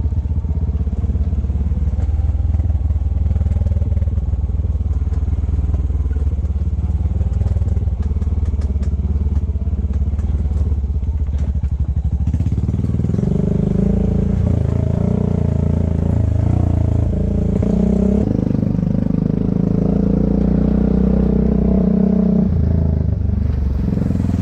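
Honda ATV's single-cylinder four-stroke engine running as the quad rides along a dirt trail. It holds steady for the first half, then from about halfway it takes more throttle, with the engine note rising and falling.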